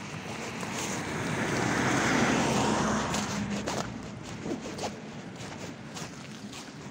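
Road vehicle passing close by: engine and tyre noise swells to a peak about two seconds in, then eases off, with scattered light clicks and knocks after it.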